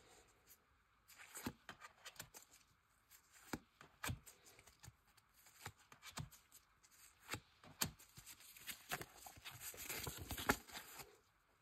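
Foil trading-card packs and cards handled by hand: scattered sharp clicks and taps, then a denser crinkling rustle of foil near the end with one loud snap.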